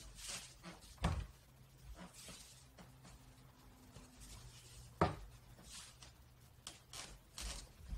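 Wooden practice sword swishing through the air in a series of cuts, about half a dozen soft whooshes, with two sharp knocks about a second and five seconds in.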